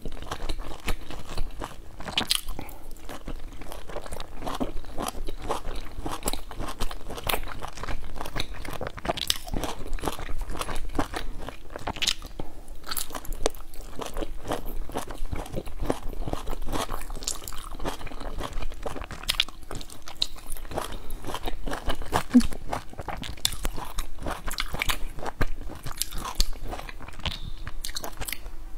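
A person biting into and chewing pan-fried dumplings, a steady run of small irregular clicks and crunches from the mouth.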